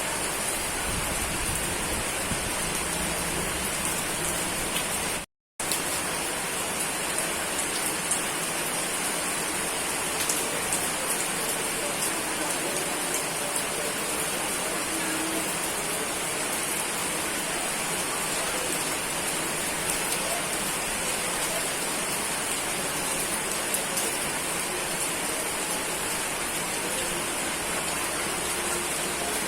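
Steady, dense rain hissing evenly, with faint individual drop ticks. The sound cuts out completely for a split second about five seconds in, then resumes unchanged.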